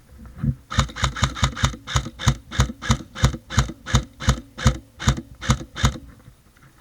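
Footsteps of a person running, thudding about three to four times a second for some five seconds, then stopping.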